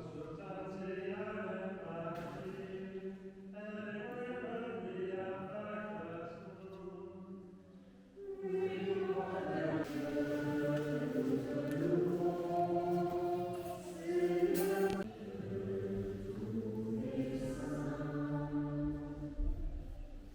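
A group of voices singing a slow, chant-like religious hymn, holding long notes in phrases, with a louder phrase starting about eight seconds in.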